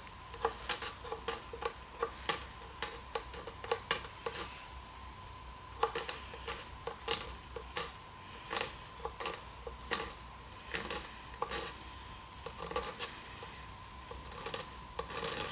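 Irregular light clicks and taps of small hard objects being handled, over a faint steady high hum.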